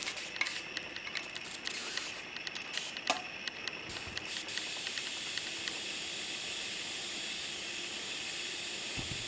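High-voltage hiss and crackle from the EHT of a CRT monitor's flyback (line output) transformer, drawn at the anode cap. Scattered small snaps through the first few seconds, the sharpest about three seconds in, then a steady hiss. The discharge is weak, giving 'not much' instead of proper arcs, after the flyback was overdriven.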